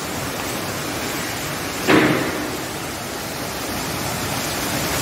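A steady rushing hiss, with one sudden sharp sound about two seconds in that fades within half a second.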